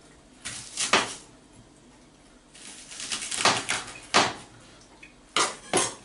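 Kitchen knife cutting through vegetables onto a chopping board, in short crisp strokes: two near the start, a run of several in the middle, and two close together near the end.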